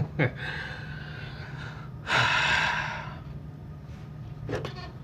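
A person breathing, with a loud breath out lasting about a second from about two seconds in; a few sharp clicks at the start and near the end.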